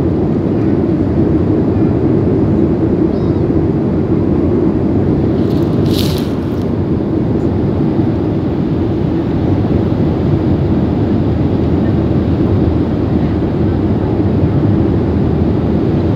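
Steady roar of a Boeing 737-900's CFM56 jet engines and airflow, heard inside the passenger cabin during the climb after takeoff. A short burst of hiss comes about six seconds in.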